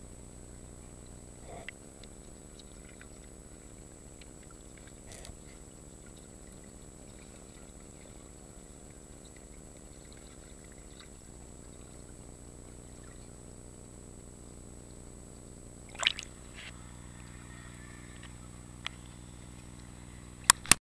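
Muffled underwater ambience picked up by a submerged action camera: a steady low hum with a faint constant high whine and scattered small clicks. A sharp knock comes about sixteen seconds in, and a few sharp splashy clicks near the end as the camera breaks the surface.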